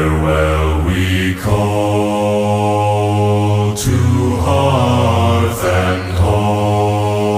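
Background music: deep male voices humming or chanting a slow melody in long held notes, swelling in loudly just before the start.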